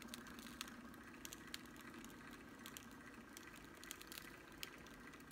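Faint, scattered light ticks of a finger tapping a glitter shaker bottle as chunky glitter is sprinkled onto a tumbler, over a steady low hum.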